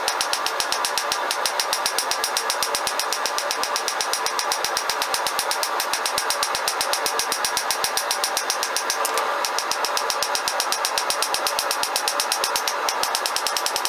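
A cross peen hammer striking hot mild steel on an anvil in a fast, evenly spaced run of blows, texturing the rose petals, over a steady hiss.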